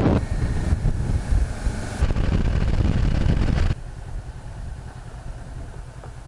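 Riding sound of a 2013 Honda CB500X, its parallel-twin engine running under heavy wind rush on a helmet microphone. About two-thirds of the way through, the sound drops sharply and then fades away.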